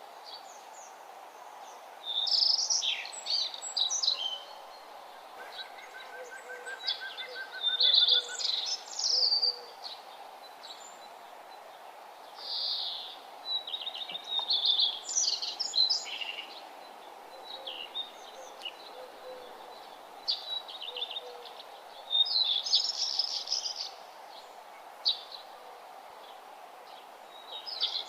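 Wild birds singing in short, bright, trilling phrases that come every few seconds, over a steady background hiss. Faint low calls sound beneath them now and then.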